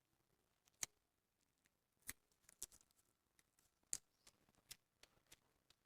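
A few faint, sharp clicks and snips, about five spread over several seconds, from handling medical paper tape with seeds stuck on it.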